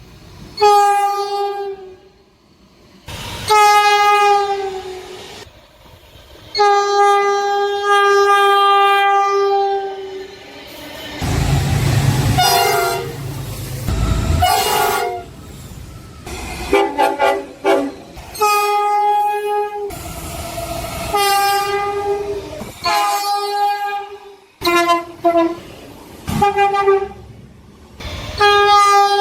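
Train horns sounding a series of blasts, some long and some in short bursts, the pitch dropping as the train passes (Doppler shift). Partway through, a deep rumble of a passing train sits under a horn.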